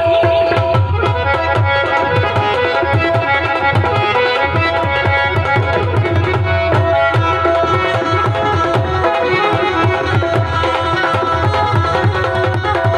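Live Punjabi folk instrumental passage: hand drums playing a fast, steady rhythm under a sustained melody of held notes, with no singing.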